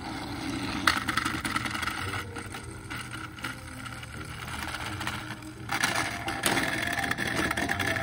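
Two battery-powered Thomas & Friends toy engines running on plastic track, their motors and wheels making a steady whirring rattle as they push against each other. The sound swells about a second in and again from about six seconds, with a few sharp clicks.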